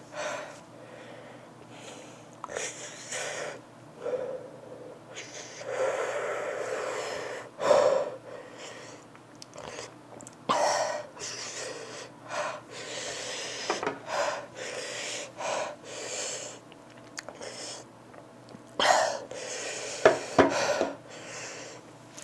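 A woman breathing heavily and irregularly, drawing breaths in and out, with a few louder breaths near the end: her reaction to the burn of an extremely spicy 'death nut' peanut.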